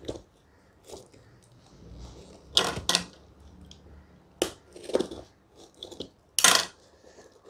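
Cardboard shipping box handled and knocked against a glass tabletop while its packing tape is slit with a utility knife: a few short, sharp scrapes and knocks, the loudest near the end.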